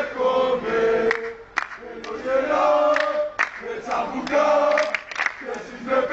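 A group of football supporters, mostly men's voices, chanting a terrace song together in long sung phrases. A few sharp percussive hits cut through the singing.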